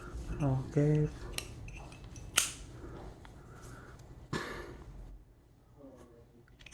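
Zippo lighter being handled just after refilling: one sharp metallic click about two seconds in, then a second, longer metal clack with a short scrape about four seconds in.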